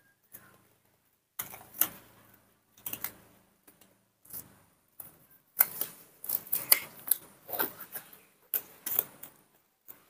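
Close handling noise: a run of irregular sharp clicks and crinkly crackles, sparse at first and busier in the second half.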